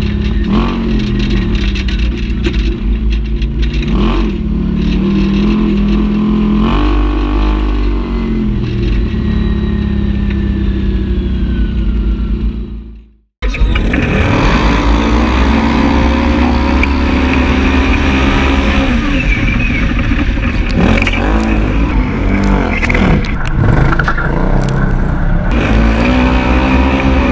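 Side-by-side UTV engine revving up and down under hard driving, heard from inside the cab. In the first half it is the Can-Am Maverick 1000R's V-twin on a trail, and it fades out about halfway through. It cuts straight back in as another stretch of UTV engine at racing throttle.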